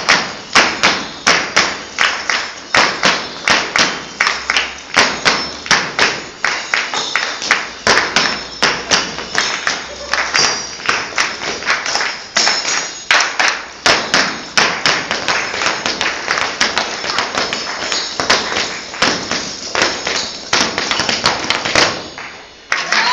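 Several dancers' boots stamping on a hard floor in a zapateo, a rapid uneven run of heel-and-toe strikes that stops abruptly near the end.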